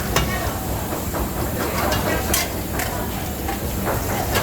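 Busy teaching-kitchen background: a steady low rumble with a few sharp clinks of dishes and utensils, one just after the start and another a little past two seconds in, and faint voices.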